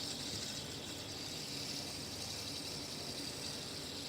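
Fidget spinner spinning on its bearing: a steady, high whirring hiss.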